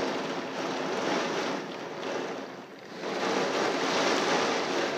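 Severe thunderstorm wind gusting with heavy driving rain: a steady rushing noise that eases briefly about halfway through, then surges back.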